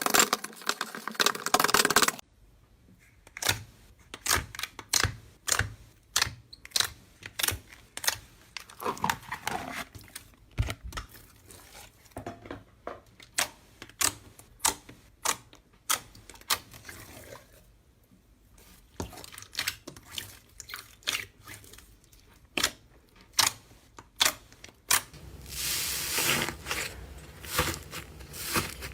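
Slime being worked by hand: a dense crackling burst in the first two seconds, then a long run of sharp, irregular clicks and pops, and another denser crackling spell near the end.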